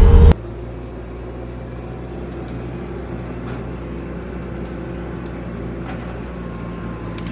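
A loud passage cuts off abruptly a moment in. It leaves the Bobcat T650 compact track loader's diesel engine running with a steady low hum, and a few faint ticks over it.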